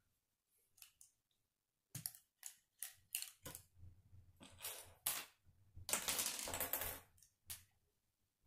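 Plastic K'nex rods and connectors clicking and rattling as an assembled section is handled and turned: a string of sharp clicks, then about six seconds in a rattle lasting about a second.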